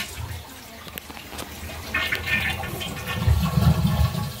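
Toilet being flushed as a test: water rushing from the tank into the bowl and down the drain, building up about two seconds in and loudest near the end.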